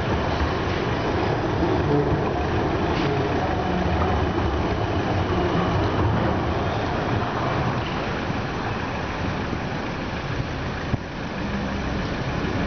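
Siemens Combino tram running along street tracks and drawing away, a steady low noise of motors and wheels mixed with street traffic. One brief knock near the end.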